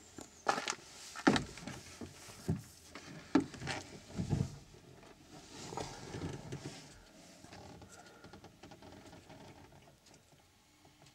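A series of irregular knocks and thumps, five or six loud ones in the first few seconds, then fainter clicks and rustling.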